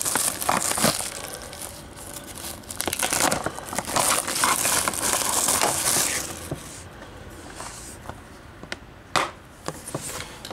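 Clear plastic shrink-wrap being peeled off a Blu-ray case and crumpled in the hands: a dense crinkling that eases off after about seven seconds. Near the end come a few sharp clicks as the blue plastic case is opened.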